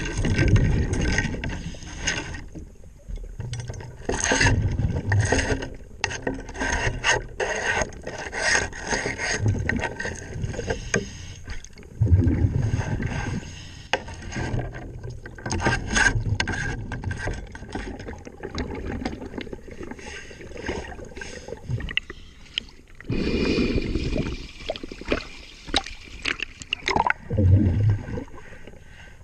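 Underwater hull cleaning: a diver's brush or scraper rubbing along a motor yacht's hull in irregular strokes, heard through the water.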